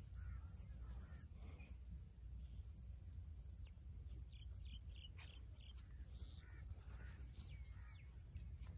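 Straight razor scraping across stubble in short, repeated strokes, with birds calling in the background.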